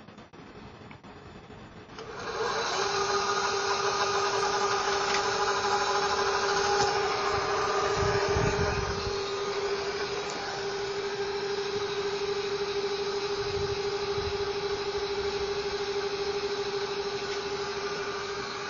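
Celestron CGE Pro equatorial mount's motors slewing a C14 telescope: a steady electric motor whine that starts about two seconds in and holds without a break, with a couple of low bumps along the way.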